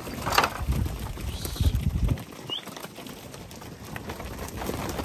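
A bird calling a few short rising chirps, over low rumbling noise in the first half.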